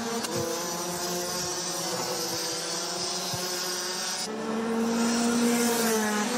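Rotax Max DD2 125cc two-stroke kart engines running at racing speed as two karts pass. About four seconds in, the engine tone drops lower, steadies and gets a little louder.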